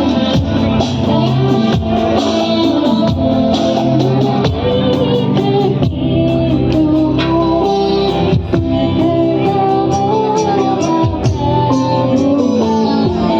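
Instrumental introduction of a Christian worship song: a band with guitar playing a melody over a steady beat.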